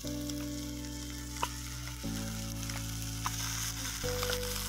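Bacon sizzling in a frying pan over a campfire, with a couple of sharp pops. Under it, background music of held chords that change about every two seconds.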